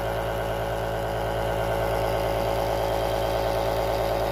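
Steady machine hum, like a motor or fan running, holding several fixed pitches without change.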